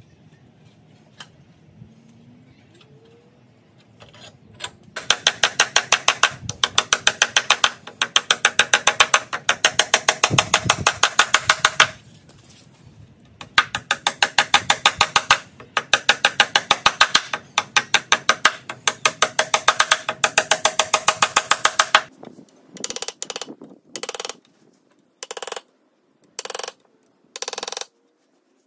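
Long runs of rapid, evenly spaced sharp taps, then six short separate bursts near the end: a hammer and nail punch driving and setting nails into pine rails.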